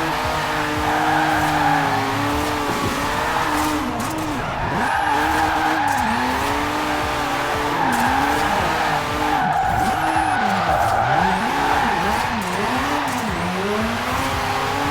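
Turbocharged Mazda RX-7 Spirit R's two-rotor rotary engine revving up and down while the car drifts, with its tires skidding. The revs drop and climb again several times in the second half.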